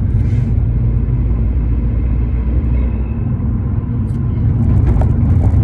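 Road and engine rumble heard inside a moving Chevrolet car: a steady low drone of tyres and engine, with a few short knocks and rattles near the end as the car goes over a bump.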